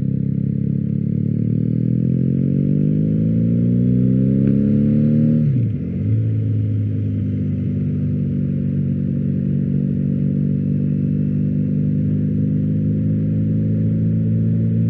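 BMW R1250GS boxer-twin engine running through an Akrapovič exhaust. The revs climb steadily for about five seconds, drop sharply, then hold at a steady pitch.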